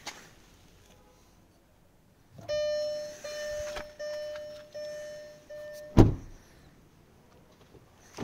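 A Hyundai i20's electronic warning chime dinging about five times in a row, each ding fading slightly, then a single heavy thump, like a car door shutting, that cuts it off.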